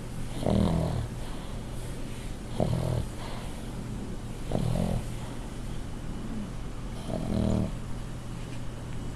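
A pug snoring hard in deep sleep: four loud snores, roughly two seconds apart, over a steady low hum.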